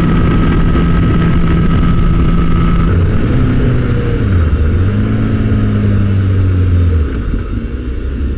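Kawasaki ZX-10R sportbike's inline-four engine running at steady cruising speed with wind rush. About three seconds in the engine note falls as the bike slows, holds a lower steady note, then goes quieter near the end as the throttle closes and the wind noise fades.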